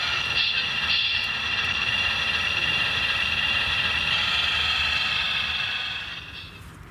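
Steady high-pitched whine of an RC construction model's small electric motor running, fading out about six seconds in.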